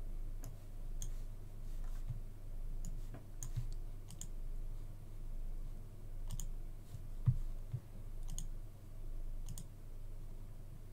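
Computer mouse buttons clicking at irregular intervals, a dozen or more clicks, the loudest about seven seconds in, over a steady low electrical hum.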